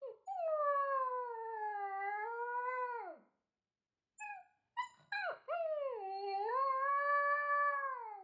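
A dog howling: one long wavering howl that drops off at about three seconds, a few short yips, then a second long howl.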